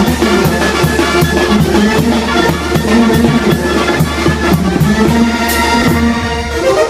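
Mexican banda brass band playing chinelo dance music: brass melody over a drum and cymbal section with a steady beat.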